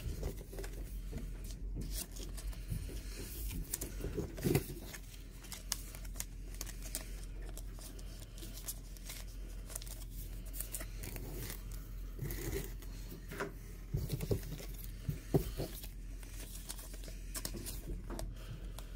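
Trading cards and plastic pack wrappers being handled: cards slid and flipped through by hand, wrappers and sleeves crinkling, with many small irregular clicks and rustles.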